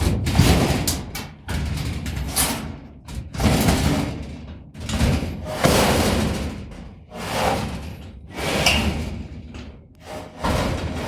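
Factory machinery working in heavy repeated strokes, each a sudden clanking impact that dies away over about a second, roughly one a second. Near the end a different, steadier machine sound starts.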